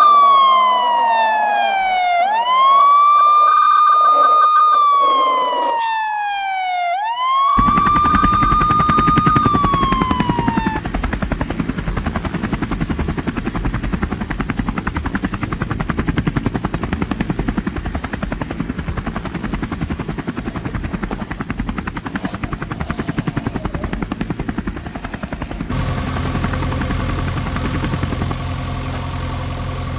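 A battery toy police car's electronic siren wails, sliding slowly down in pitch, jumping back up and holding, over and over, until it fades out about ten seconds in. From about seven seconds in, a push-along toy airplane with a spinning propeller makes a fast rattling whirr. Near the end this gives way to a steadier hum from a toy JCB loader.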